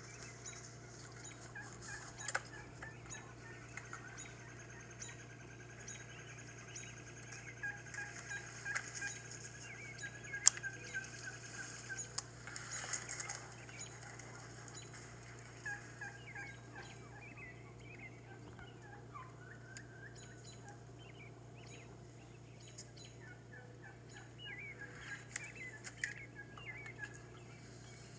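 Wild turkeys calling in short, scattered series, heard through a laptop's speakers over a steady low hum, with one sharp click about ten seconds in.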